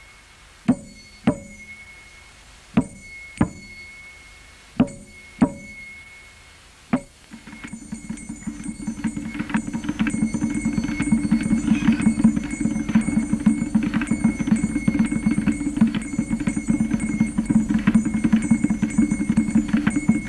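Percussion music: sharp drum strikes in pairs, each with a ringing metallic note, then from about seven seconds in a fast, continuous drumming with a high ringing over it.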